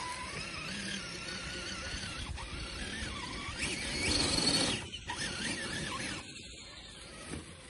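Traxxas TRX-4 RC crawler's electric motor and gearbox whining, the pitch rising and falling with the throttle, as its tyres scrabble through leaves and snow. It gets louder and rougher about four seconds in, then eases off.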